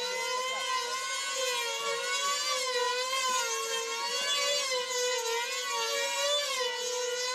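Two F2D control line combat models' small 2.5 cc two-stroke glow engines running flat out at very high revs, a high, steady buzzing whine. The pitch rises and falls about once a second as the planes circle the pilots on their lines.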